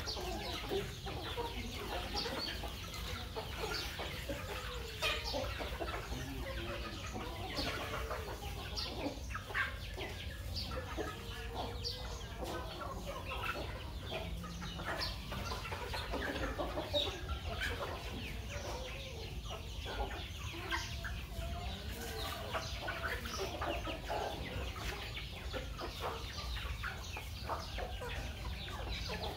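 A flock of domestic chickens, hens, roosters and chicks, clucking and calling steadily as they crowd in to feed, with short sharp ticks scattered throughout.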